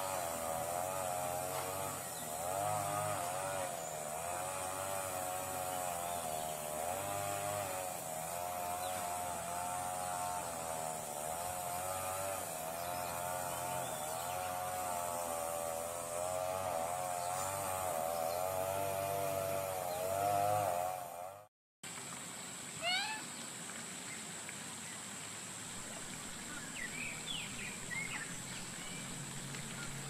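A steady, wavering hum of several tones runs for about twenty seconds and cuts off abruptly. It is followed by quieter outdoor ambience with a few short rising bird chirps.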